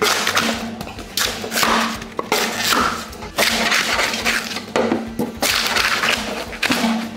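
Repeated bursts of scraping, crackling and tearing as rigid poured foam insulation is pried and ripped off a water heater's steel tank. Each burst lasts under a second, with short gaps between.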